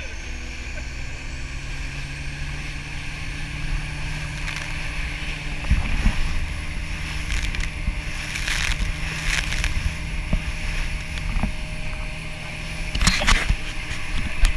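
Motorboat engine running steadily while the boat is under way, under a constant rush of wind and water. A few louder thumps come about halfway through and again near the end.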